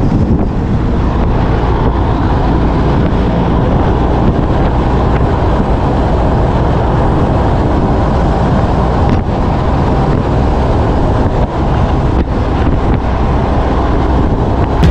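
Steady noise of a Peterbilt 379 semi-truck on the move: wind rushing over a microphone mounted outside on the hood, mixed with the truck's diesel engine and tyre noise.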